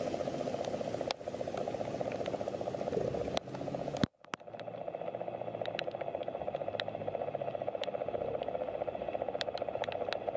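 Road traffic on a rain-wet street: a steady engine-and-tyre noise with scattered sharp ticks, cut by a brief near-silent gap about four seconds in.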